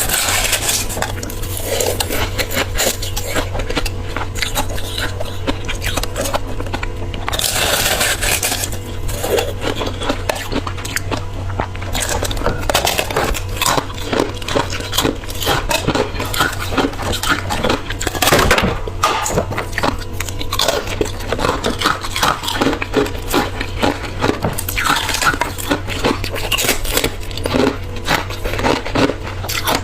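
Close-miked crunching and chewing of refrozen freezer ice, a dense run of small crackling crunches one after another, over a steady low hum.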